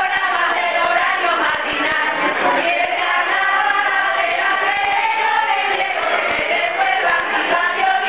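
A group of voices singing a song together, with a few faint clicks.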